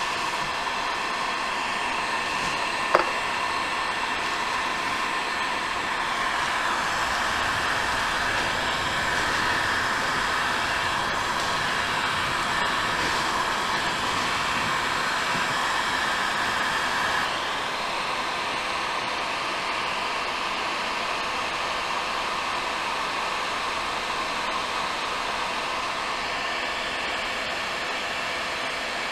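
Porter-Cable heat gun blowing steadily into a tin can to melt chunks of paraffin wax. A single sharp tap about three seconds in, and the blower's sound shifts and drops slightly about seventeen seconds in.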